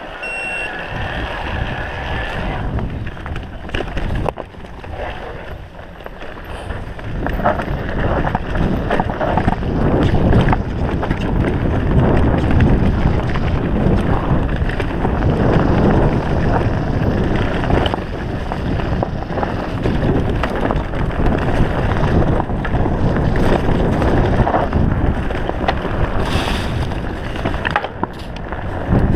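Mountain bike riding a rough dirt trail: tyres rumbling over dirt, leaves and stones, with knocks and rattles from the bike. Wind buffets the microphone, getting louder from about seven seconds in as the speed rises.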